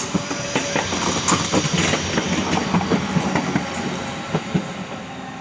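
Red DB Regio electric multiple unit running past close by, its wheels clattering over rail joints and points in a quick, irregular run of knocks over a steady rumble and electric hum. The knocks thin out in the last second as the train moves away.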